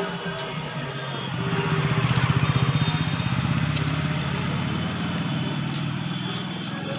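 Motorcycle engine running as the bike rides past close by. It grows louder over the first two seconds, peaks, then slowly fades.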